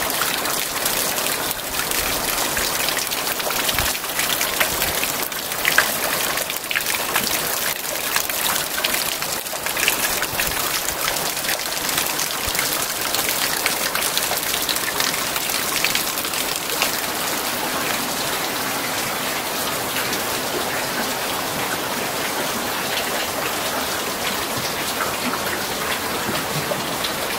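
Steady rain falling, an even hiss with many individual drops striking close by.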